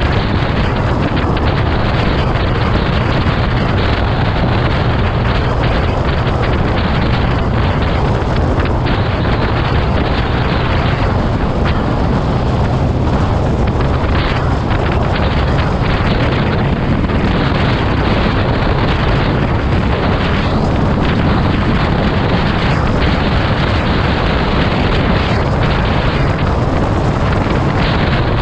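Steady wind rush on the microphone over the running noise of a moving vehicle, heaviest at the low end and unchanging throughout.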